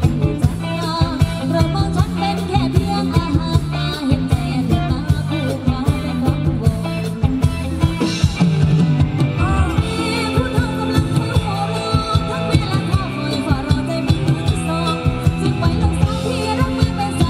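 Live band playing Thai ramwong circle-dance music, a singer over keyboard and a steady drum beat.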